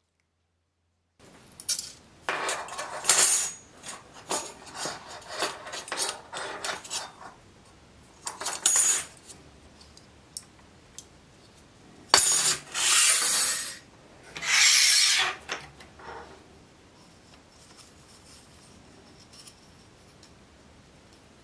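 Metal scraping and rubbing in short bouts on a rusty steel bayonet scabbard, with a sharp metallic clink about halfway through; the sound fades to faint handling noise for the last few seconds.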